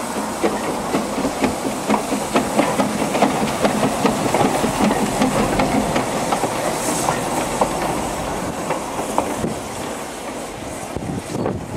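Narrow-gauge steam saddle-tank locomotive Prince running light at low speed, with many sharp clicks and clanks from its wheels and motion over the rail joints and a brief hiss of steam about seven seconds in. It grows a little quieter near the end as it draws away.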